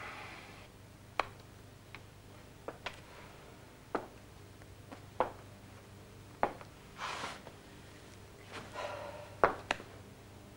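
Scattered light taps and knocks at irregular intervals, about a dozen in all, with a few brief rustles, over a faint steady hum.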